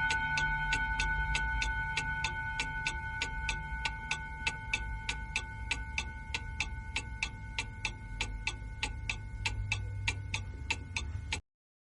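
Wall clock ticking evenly, about three ticks a second, while the ring of its last hour chime fades away. The sound cuts off suddenly near the end.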